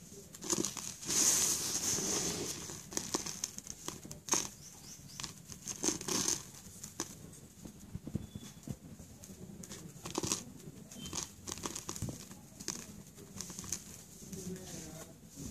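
A hand crumbling slate-pencil powder over a sheet of paper: irregular rustling and crinkling of the paper with small gritty clicks, the loudest burst about a second in.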